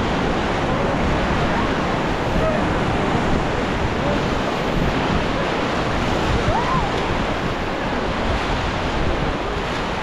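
Whitewater rapids rushing steadily around an inflatable raft, with wind buffeting the microphone.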